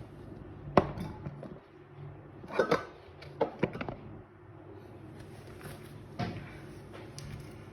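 Handling noises: a sharp click about a second in, a cluster of knocks a couple of seconds later, three quick clicks, and another knock near the end, over a low steady hum.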